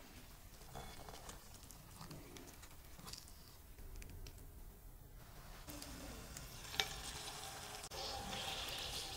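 Metal spoon and gloved hand working thick batter in a glass bowl, faint soft squishing and scraping; a sharp click near the end, then a ball of batter dropped into vegetable oil heated to 180 °C sets off a steady sizzle of deep-frying.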